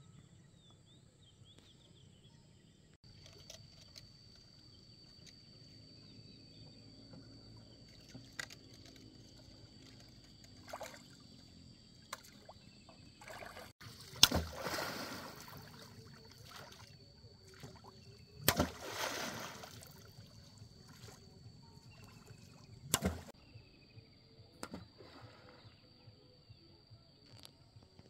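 A long pole slapped hard on the lake surface from a small wooden boat, three times about four to five seconds apart, each a sharp smack followed by splashing. A steady high insect drone runs behind, with a few faint wooden knocks before the first slap.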